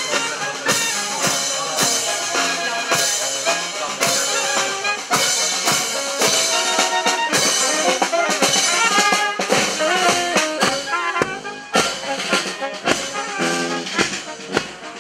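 Military brass band playing with drums, a steady beat under the brass lines.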